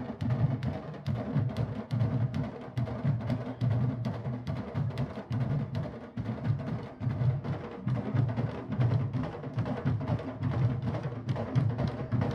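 A candombe drum line playing together: a dense, driving rhythm of stick and hand strikes on barrel drums, with deep booming beats underneath and sharp clicks of sticks on the wooden drum shells.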